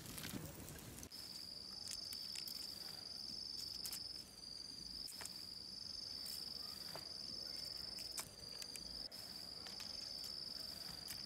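An insect trilling, a steady high-pitched buzz that starts about a second in and runs in long phrases of about three seconds with brief breaks between them. A few faint clicks.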